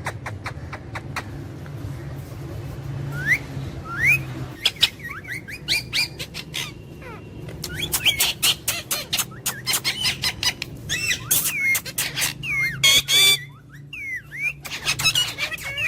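A parrot calling with quick rising chirps, whistles and clicks that come sparsely at first and then crowd together from about five seconds in, with a loud harsh squawk near the end. A steady low hum runs underneath.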